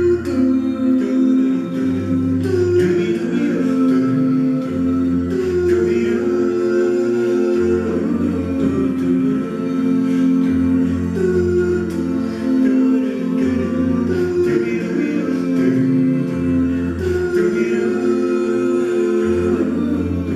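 A cappella vocal group singing sustained close-harmony chords, with a bass voice holding low notes that move every second or two beneath them.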